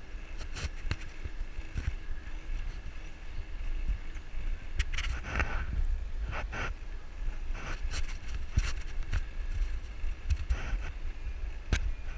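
Wind rumbling over the microphone of an action camera on a moving bicycle, with tyre noise on asphalt and short rattles and knocks from the bike now and then.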